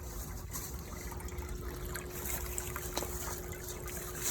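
Small pump circulating vinegar through a tankless water heater to descale it, with liquid trickling from the return hose into the bucket. A steady hum sits under the trickle, and there is one faint click about three seconds in.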